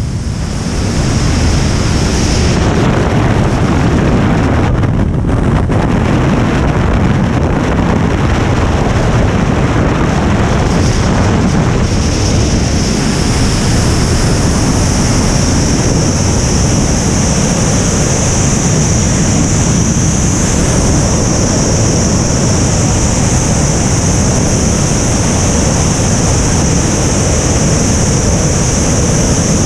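Freefall wind rushing over a skydiving camera's microphone: a loud, steady rumble with a high hiss that grows stronger about twelve seconds in.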